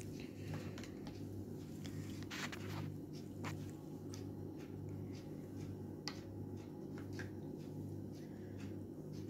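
Wooden spatula working a thick orange-peel paste in a glass bowl: faint scattered scrapes and soft squishy clicks over a steady low hum.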